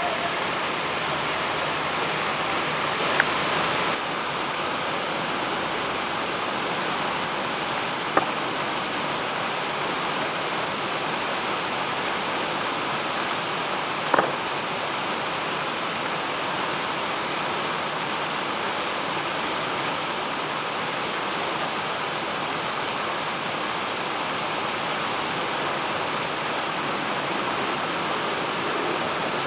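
Water falling steadily over a tiered stone cascade, a constant rushing splash. Three brief clicks stand out, about three, eight and fourteen seconds in.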